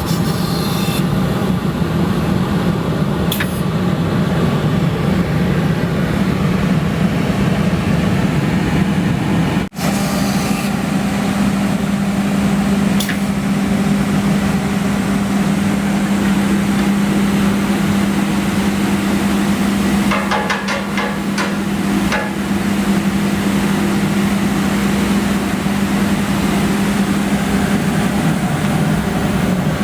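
Koch Sprint MT CNC mortise and tenon machine running with a steady hum, with occasional knocks and a short run of rapid clicks about twenty seconds in.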